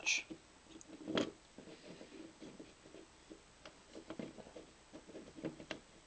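Laser-cut plywood parts of a UGears combination lock being handled: a sharp click about a second in, then light scraping and rubbing of wood on wood as the toothed shackle leg is worked into its notch.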